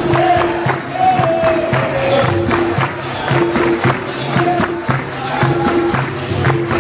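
Capoeira roda music: a berimbau sounds a repeating note pattern over the rhythmic jingling strokes of a pandeiro, with a voice singing a melody over them.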